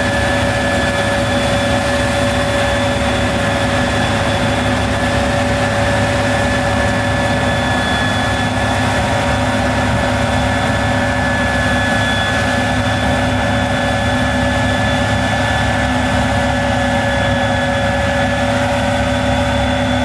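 Case IH 5130 Axial-Flow combine harvester running under load while harvesting rye: a loud, steady diesel engine drone with a machinery whine in several fixed pitches.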